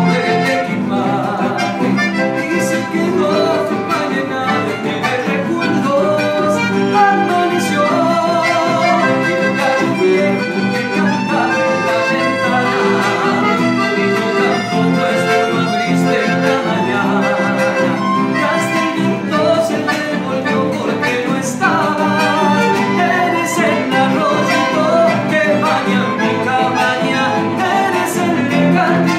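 Chamamé played live on piano accordion, nylon-string guitar and violin: an instrumental passage that runs on without a break.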